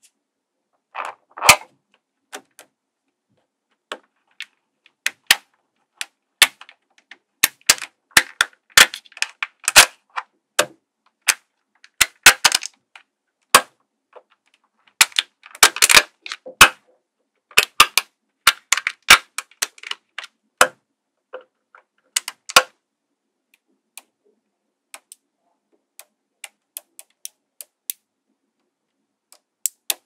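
Small magnetic balls clicking and snapping together as they are placed on a model by hand, in irregular quick clusters of sharp clicks that thin out to a few single clicks in the last third.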